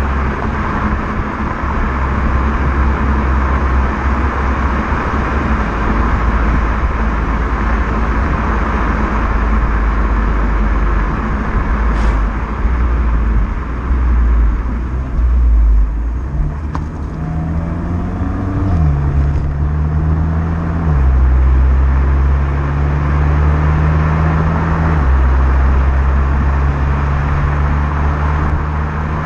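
Renault Mégane GT's 1.6 TCe turbocharged four-cylinder engine running through its stock exhaust while driving, with road noise. The engine note holds steady, then in the second half rises briefly and moves in steps up and down as the engine speed changes.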